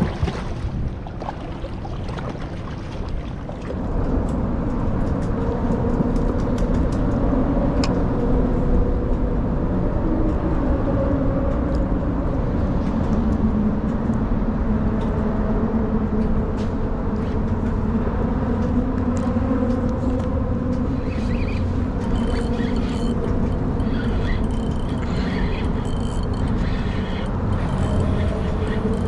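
Steady rumble and hum of road traffic crossing the bridge overhead, louder from about four seconds in, with a few light clicks.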